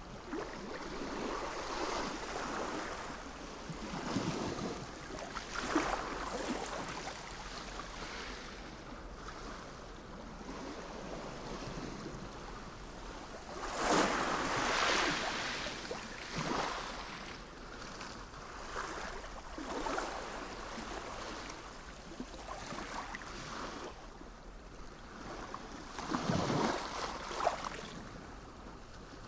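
Sea waves breaking and washing in on the shore. The surf swells and falls back every few seconds, loudest about halfway through and again near the end.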